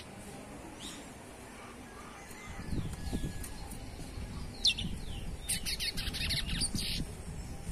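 Young chestnut-bellied seed finch (curió) calling: a few short, sharp falling chips, then a quick twittering run about five and a half seconds in. A low rumble of background noise sets in a couple of seconds in.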